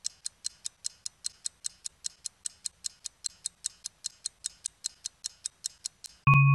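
Film-projector ticking sound effect: a steady run of sharp clicks, about five a second. Shortly before the end the clicks stop and a sustained synthesizer chord comes in.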